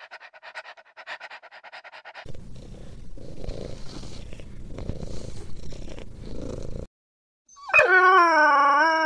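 Three separate animal vocalizations: a rapid pulsing chatter of about eight pulses a second, then a low rough, rasping sound for several seconds, then after a short break a loud, wavering, drawn-out call near the end.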